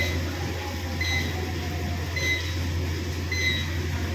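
Short high electronic beep repeating about once a second over a steady low hum.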